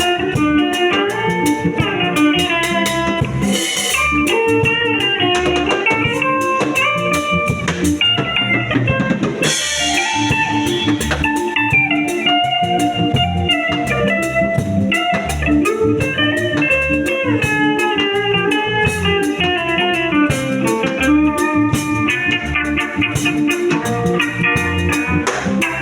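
Instrumental break in a gospel song: a melodic lead line moving note to note over a steady drum beat, with no singing.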